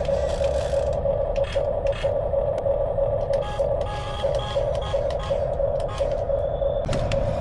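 Small electric motor and plastic gearbox of an RC model vehicle whining steadily at one pitch, with scattered clicks and light knocks from the working parts.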